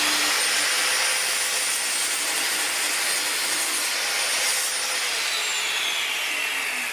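Bosch GCM8SJL sliding mitre saw running at full speed and cutting slowly through a clamped block of timber. About five seconds in the motor is switched off and winds down with a falling whine.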